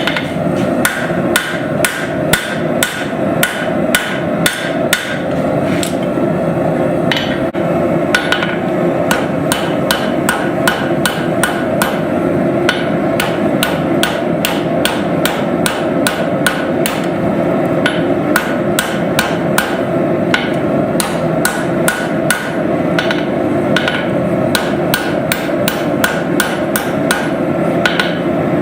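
Hand hammer striking hot steel on an anvil in a steady series of blows, about two a second, each blow ringing briefly, with a short lull about seven seconds in. A steady rushing noise runs underneath.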